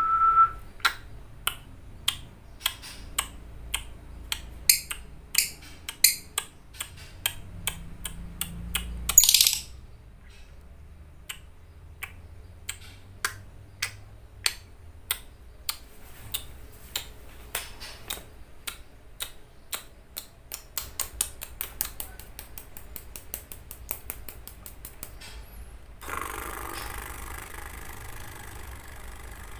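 Fighter lovebird's 'ngekek' song: a string of sharp, clicky shrill notes, about one to two a second at first with a louder burst about nine seconds in. Later the notes speed up into a fast rattling run, then break into a harsh chatter near the end.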